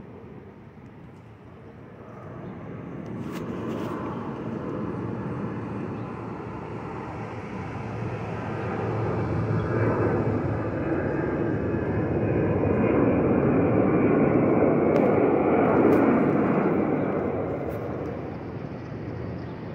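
Twin-engine jet airliner climbing out overhead after takeoff: a broad jet rumble that swells over several seconds, is loudest about three-quarters of the way through, then begins to fade.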